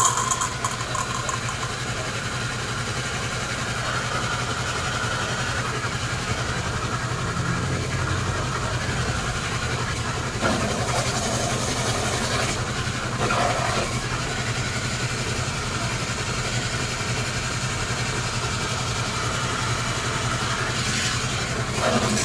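A machine running steadily with a constant low hum.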